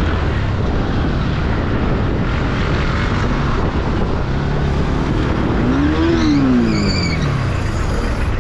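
Motorcycle riding in traffic: steady wind rush on the microphone over engine and road noise. About six seconds in, a pitched sound rises and then falls.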